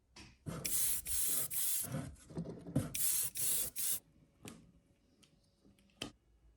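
Spray paint hissing on a model in several short bursts, in two groups, followed by a few light clicks.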